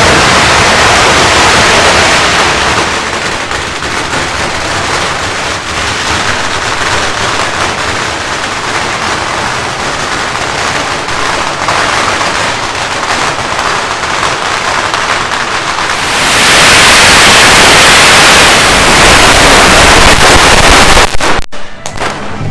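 Strings of firecrackers going off in a dense, continuous crackle. The crackle is loudest in the last few seconds and cuts off suddenly near the end.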